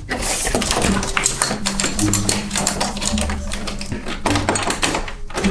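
Fast, irregular clatter of sharp clicks over background music with low, held bass notes.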